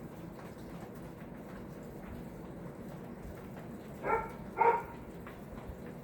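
1999 Hunter Original ceiling fan running steadily with a low, even hum. Two short animal yelps sound about four seconds in, half a second apart, louder than the fan.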